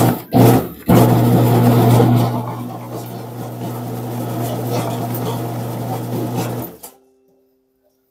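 Electric dough mixer running with a steady motor hum while it mixes flour, eggs and water into pasta dough. The hum drops in level about two seconds in and stops suddenly near the end.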